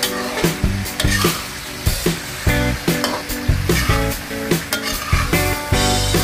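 Metal spatula scraping and knocking against a large aluminium wok as shrimp, squid, pork and vegetables are stir-fried, with sizzling. Background music with a steady run of low notes plays underneath.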